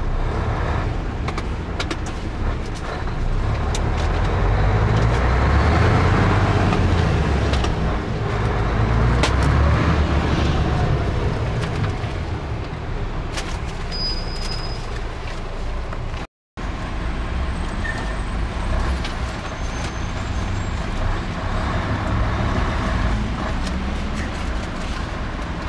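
Truck engine and road noise heard from inside the cab while driving, swelling louder for several seconds in the first half. The sound drops out completely for a fraction of a second about two-thirds of the way through.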